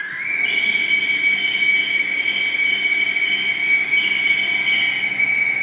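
HAAS Desktop Lathe spindle spinning up to 2000 rpm under program control, a rising whine that settles into a steady high whine while the turning tool feeds along the aluminium bar cutting a groove.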